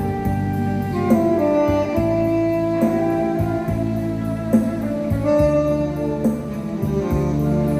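Tenor saxophone playing a melody in long held notes over a band accompaniment with bass and a steady beat.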